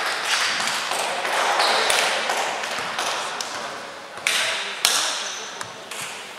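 Indistinct noise of a sports hall after play, with two sharp knocks about half a second apart past the middle, the whole slowly fading out near the end.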